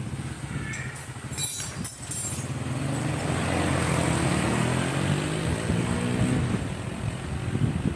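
Honda Grand motorbike's freshly rebuilt single-cylinder four-stroke engine on its test ride, running as the bike pulls away and accelerating, its pitch climbing from about three seconds in before easing as it moves off. A sharp clack about a second and a half in.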